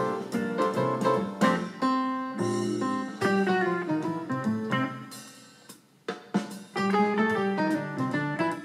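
Background music led by guitar, with drums, dropping away briefly about six seconds in before picking up again.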